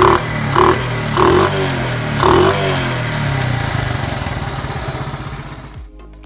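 Honda ATC 70's small single-cylinder four-stroke engine running steadily after sitting for 15 years, picking up briefly several times in the first half. It fades out over the last couple of seconds.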